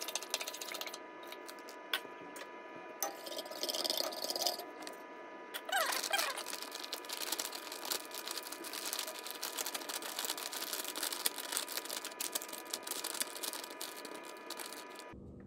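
A plastic bag of alginate molding powder crinkling as the powder is shaken out into a stainless steel mixing bowl. It sounds like a dense run of small crackles and clicks over a hiss, with a faint high steady tone underneath.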